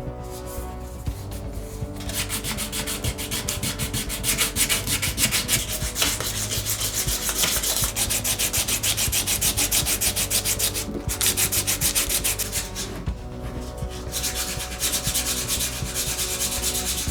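Sandpaper rubbed back and forth by hand in quick, even strokes, starting about two seconds in, with a couple of short pauses.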